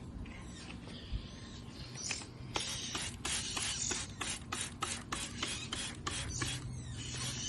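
Water spattering as a pet songbird is bathed: a rapid series of short hissing bursts, about four a second, starting about two seconds in.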